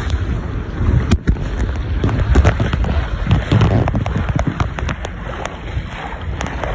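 Wind buffeting the microphone and water rushing along the hull of a sailboat under way upwind, with many scattered sharp clicks and crackles through it.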